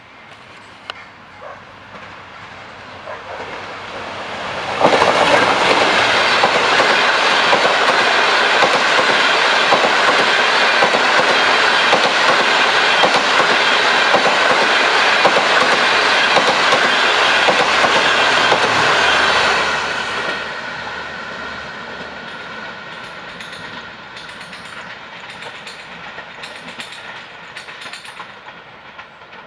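Diesel-hauled passenger train approaching and passing close by. Its sound builds slowly, jumps abruptly to full loudness about five seconds in as the train reaches the platform, and stays loud for about fifteen seconds as the coaches roll past with their wheels running on the rails. It then fades as the train pulls away.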